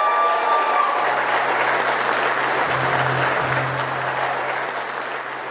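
Guests applauding loudly and steadily, slowly dying down, with a low steady note of music coming in underneath about a second in.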